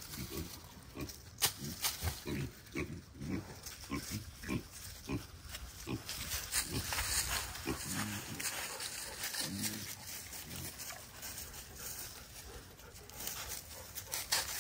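Pigs grunting: a long run of short, low grunts, about one or two a second, with a few sharp clicks among them.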